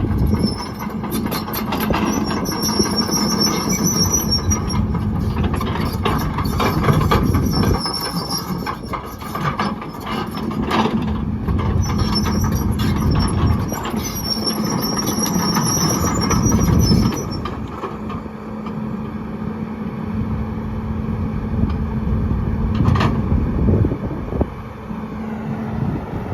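XCMG XE210CU excavator's Cummins diesel running while the machine works, its loudness rising and falling with the load, and a high-pitched metallic squeal coming and going over the first two-thirds. Near the end the engine settles to a steadier, quieter run.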